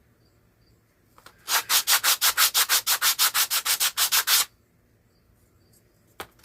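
Coarse sandpaper rubbed back and forth by hand over a small homemade radio knob, in fast even strokes of about eight a second. The sanding starts about a second and a half in, stops for a couple of seconds, and picks up again at the end.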